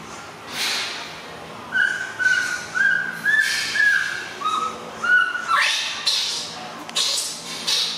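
Baby macaque crying in distress: a quick run of short, high, whimpering calls, each held at one pitch, mixed with breathy, hissing cries before and after.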